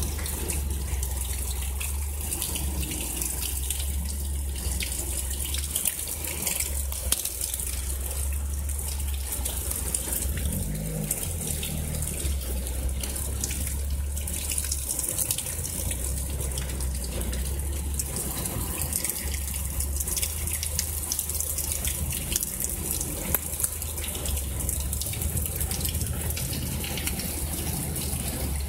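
Heavy rain falling steadily during a storm, with water pouring and splashing and many close drops ticking, over a steady low rumble.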